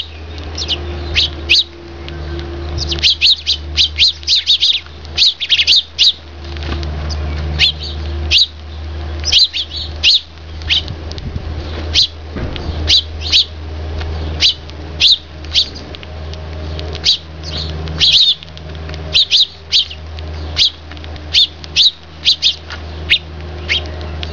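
Eurasian tree sparrows chirping: many short, high chirps, often several in quick succession, over a steady low hum.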